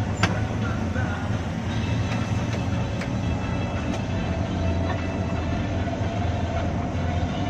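Inside a 1997 Hino RK2HM coach cruising at speed, a steady low engine and road drone, with a single sharp click just after the start and a faint steady whine coming up in the second half.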